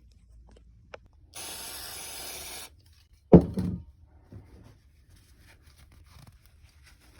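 Workshop handling noises: soft clicks and rubbing, a steady hiss lasting just over a second that starts and stops abruptly, then a single sharp thump, the loudest sound.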